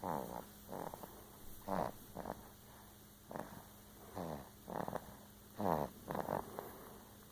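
Snoring in short, quick snores, roughly one to two a second at uneven spacing, each one falling in pitch.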